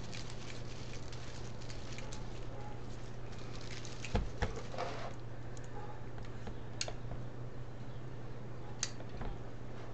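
Plastic deco mesh rustling and crinkling as it is unrolled and smoothed flat by hand, with a few small clicks and a soft knock about four seconds in. A steady low hum runs underneath.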